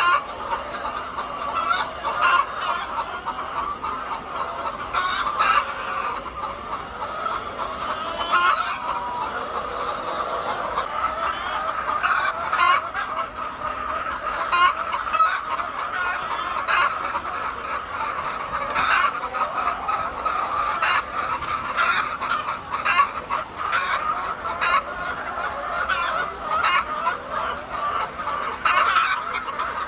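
A flock of chickens clucking and calling all together in a dense, continuous chatter, with frequent short sharp clicks among the calls.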